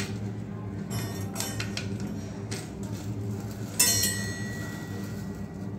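Light clicks and knocks of metal tap fittings and braided steel hoses against a ceramic wash basin as the hoses are fed down through the tap hole, then a sharp metallic clink about four seconds in that rings on briefly. A steady low hum runs underneath.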